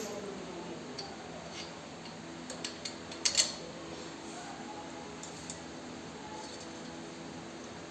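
A few light metallic clicks and clinks of a bolt and steel pipes being fitted together at the handle joint of a seed drill, bunched together near the middle, over a steady workshop background.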